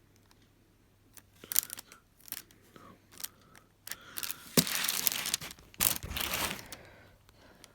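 Crinkling and rustling of plastic and paper as a diamond-painting kit is handled: scattered light rustles and clicks, then two louder crinkling stretches of under a second each, about four and a half and six seconds in.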